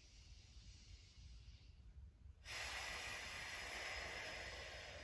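A person breathing deeply: a soft inhale, then about two and a half seconds in a louder, longer exhale that slowly fades.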